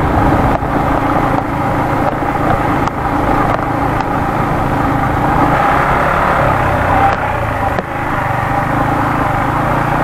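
Yamaha MT-15 motorcycle's single-cylinder engine running steadily as the bike is ridden, under a steady haze of road noise, with a few brief dips in level.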